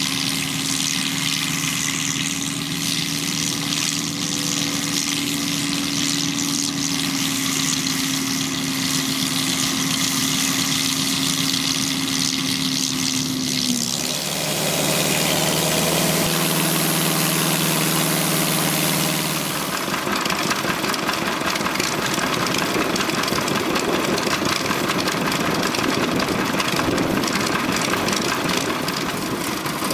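1931 Baldwin Gleaner pull-type combine at work, its Ford Model A engine and threshing machinery running steadily together with the tractor towing it. The sound shifts abruptly about 14 seconds in and again about 20 seconds in.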